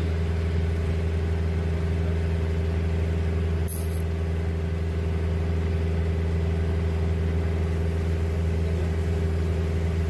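Steady engine hum of the riverboat being ridden, running at a constant speed. A brief high hiss just under four seconds in.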